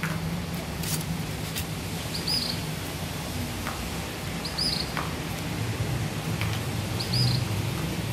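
A bird chirping, one short high chirp about every two and a half seconds, over a steady low hum. A few light clicks from a plastic fork working through the food bowl.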